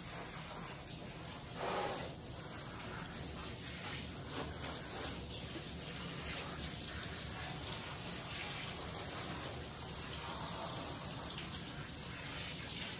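Water running steadily from a tap or sprayer onto a dog in a bathing tub during a wash, with a brief louder surge about two seconds in.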